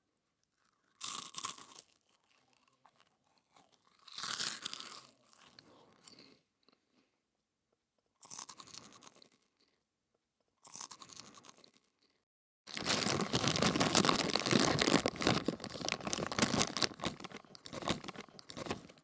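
Close-miked crunching of a crunchy puffed snack being bitten and chewed, ASMR style: four short crunches a few seconds apart, then about six seconds of continuous crunchy chewing.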